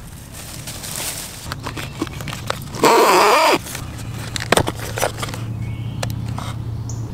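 Steps swishing through tall grass, then a loud, harsh sound with a wavering pitch, under a second long, about three seconds in. After it come sharp plastic clicks as the Spypoint Link S trail camera's case is unlatched and swung open.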